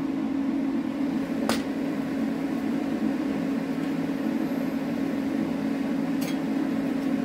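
A welding machine humming steadily while switched on and waiting, ready for TIG welding aluminium, with a couple of light clicks about a second and a half in and again near the end.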